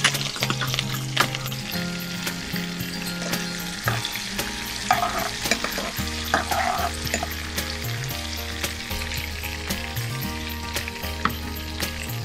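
Chopped onions, green chillies and curry leaves with whole spices sizzling in hot oil in a kadai, while a metal spatula stirs them with scattered clinks and scrapes against the pan.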